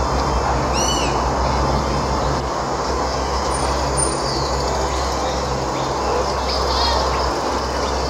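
Steady wind rush with a low rumble on an open-air lookout, and a bird giving a short chirping call about a second in and another near the end.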